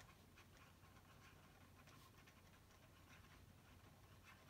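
Faint scratching of a pen writing on paper: a run of short, irregular strokes just above near silence.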